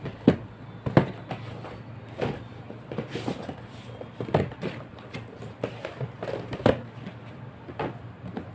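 Clothes and a dress in a plastic packet being handled and rustled while packing, with scattered sharp knocks and taps, the loudest in the first second and another near the end.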